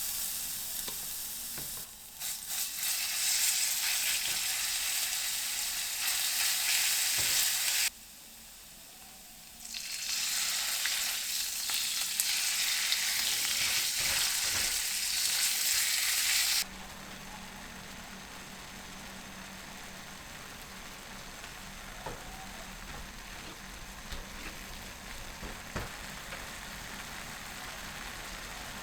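Food sizzling in a hot frying pan, in two stretches with a short quieter gap about eight seconds in. At about seventeen seconds the sizzle stops abruptly, leaving a low steady hum with a few faint clicks.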